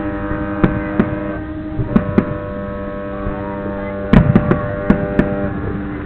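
Fireworks salute going off, sharp bangs scattered through, with the loudest cluster of reports a little after four seconds in. Underneath, long steady chord-like tones sound, shifting about two seconds in and again near the end.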